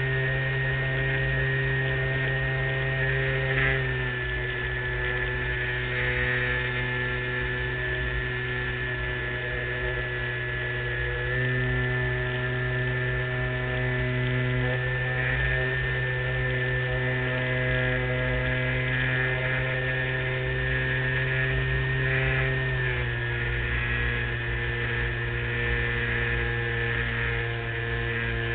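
LazyBee radio-controlled model plane's motor and propeller, heard from a camera on its wing, running with a steady hum. The pitch drops about four seconds in, rises again around eleven seconds, and drops again near twenty-three seconds as the throttle is eased back and opened up.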